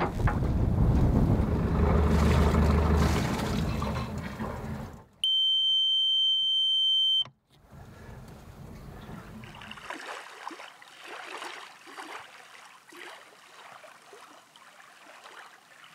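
Electric anchor windlass running as the anchor chain goes out over the bow, a loud mechanical whir with a low hum for about five seconds. Then the Yanmar diesel's instrument-panel alarm buzzer gives one steady high beep for about two seconds and cuts off, as the engine is shut down. Faint lapping water and wind follow.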